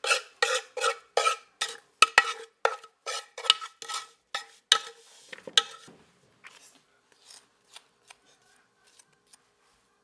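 Aluminium cooking pot being knocked and scraped repeatedly, about three sharp knocks a second with a faint metallic ring, as fried cornmeal is emptied out of it into a plastic bowl. About six seconds in the knocking stops, leaving a few faint clicks.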